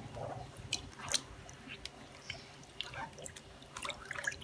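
Gloved hands working a silk scarf in a pot of indigo dye liquid, with scattered soft squelches, small splashes and drips as the fingers spread the wet fabric under the surface.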